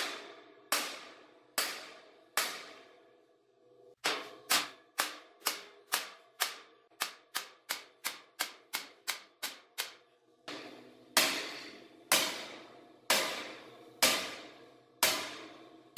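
Hammer blows on the threaded end of a 1½-inch galvanized steel pipe, driving it into a tight-fitting tower section. Each strike is a sharp clang that rings and dies away: a few spaced blows, then a quicker run of lighter hits, then heavier blows about one a second near the end.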